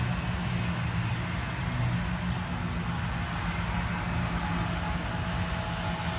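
John Deere 8400i self-propelled forage harvester chopping a swath of freshly mown grass, with the tractor pulling its silage wagon running alongside: a steady engine drone that carries on without a break.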